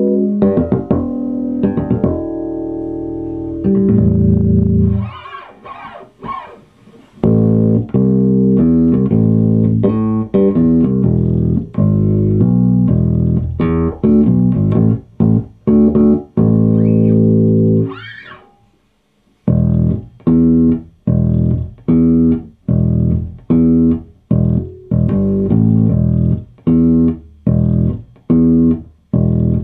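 1979 Fender Precision Bass electric bass guitar being played: plucked notes and phrases, some held, then after a brief pause a run of short, quickly damped notes at about two a second.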